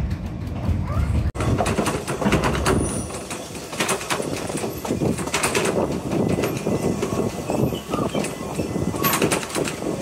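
Narrow-gauge passenger train running along the track, the carriage rattling with irregular knocks from the wheels and running gear. There is an abrupt cut about a second in.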